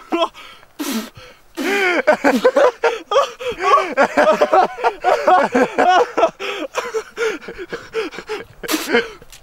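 Hard laughter in rapid gasping bursts, one after another, with sharp breathy intakes between them.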